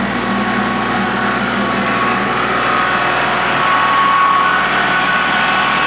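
Engine of a machine fitted with lifting forks running steadily, with a steady high whine over its drone.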